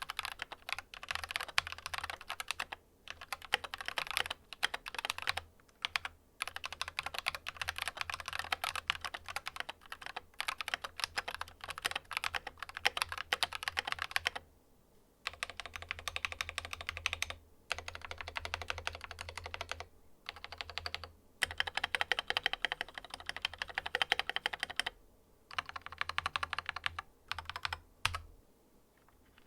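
Akko 3098 mechanical keyboard with Akko CS Matcha Green linear switches and double-shot PBT keycaps being typed on quickly, in bursts of several seconds with short pauses between them. The typing stops shortly before the end.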